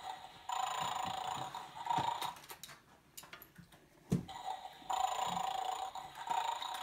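The Don't Take Buster's Bones toy dog playing its electronic snore, coming and going in stretches of about two seconds, with a few plastic clicks as a bone is pulled from it and a single knock about four seconds in.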